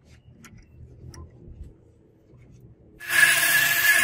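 A few light clicks of the steel scissor blade being handled against the vise, then about three seconds in a handheld rotary tool with a grinding stone starts up suddenly and runs at speed with a steady high whine.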